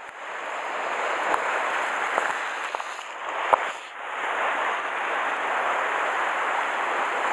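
Sea surf washing over a rocky shore: a steady hiss that eases briefly about halfway through and swells again, with a few faint clicks.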